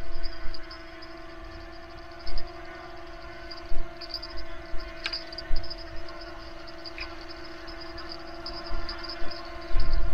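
Steady multi-tone whine of a camera drone's propellers hovering overhead. Irregular low thumps come through several times, the loudest about two, four and five and a half seconds in and again near the end.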